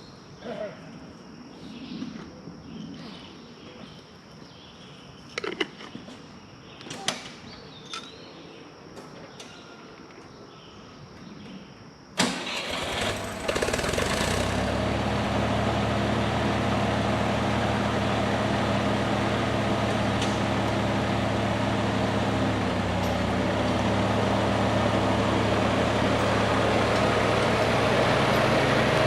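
Birds chirp faintly with a few sharp knocks. About twelve seconds in, a tractor engine is cranked for a second or so, catches, and then runs steadily at idle.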